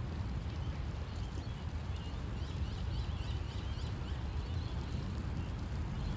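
Storm ambience: a steady low rumble, with small birds chirping in short, repeated calls over it.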